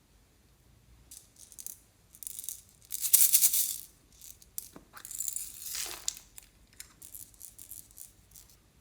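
Clear slime being mixed and squeezed by hand with things mixed into it: irregular crackly, rattling bursts, loudest about three seconds in and again near the middle.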